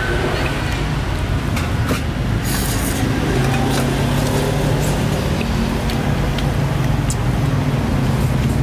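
Motor engine running steadily amid outdoor street noise, its low hum growing stronger about three and a half seconds in, with scattered light clicks and clatter.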